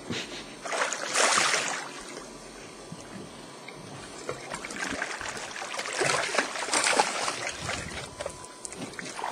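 Water sloshing and splashing at the boat's side, in swells of hiss with a few small clicks.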